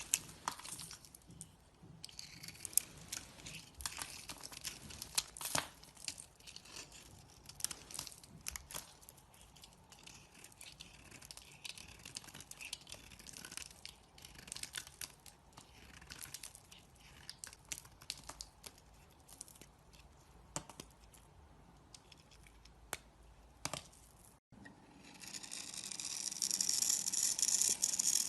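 A knife carving into a dry bar of soap: crisp scraping and crackling cuts with many sharp clicks. After a brief break near the end, a louder, continuous shaving scrape.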